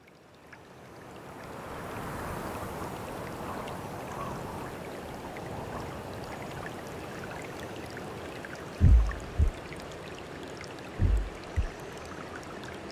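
Steady rush of flowing water that fades in at the start. Two pairs of short, deep thumps, each pair about half a second apart, come about nine and eleven seconds in and are the loudest sounds.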